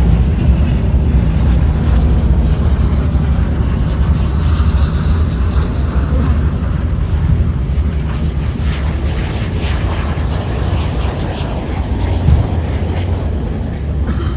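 Jet airliner cabin noise during landing: a loud, steady low rumble of engines and rushing air, easing slightly towards the end.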